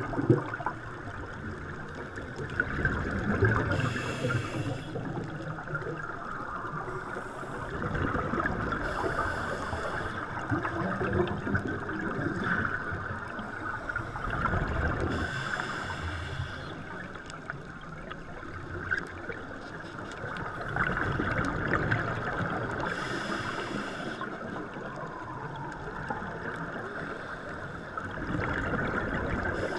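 Underwater sound of scuba diving: exhaled regulator bubbles gurgling and rushing in short bursts every five to seven seconds, over a steady muffled water rush.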